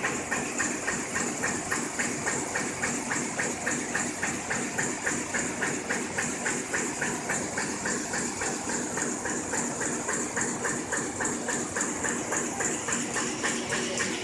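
Sheet-fed offset printing press running, with an even mechanical clatter repeating a few times a second over a steady high hiss.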